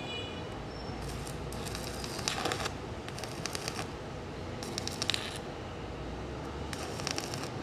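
Stick-welding arc crackling and sputtering in irregular bunches: a 2.5 mm electrode burning at a low 70 A on a BTEC MMA-200 Mini inverter welder, holding its arc at that weak current.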